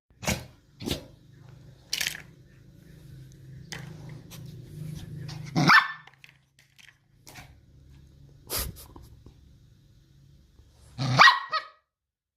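Small spitz dog barking several times, with low growling held between the barks. The loudest barks come about halfway through and near the end.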